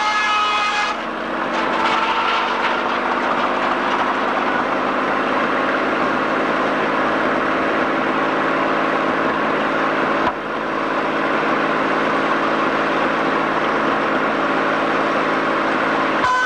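Sawmill machinery running loudly and steadily as boards are sawn off the log carriage, with two short dips, about a second in and about ten seconds in.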